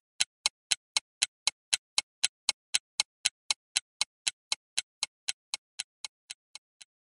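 Clock-like ticking sound effect for a countdown timer: sharp, even ticks about four a second, growing a little fainter toward the end.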